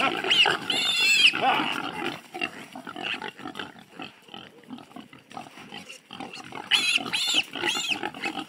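Wild boar piglet, held upside down, squealing loudly: one series of high squeals in the first second or so, a quieter stretch, then repeated squeals again near the end.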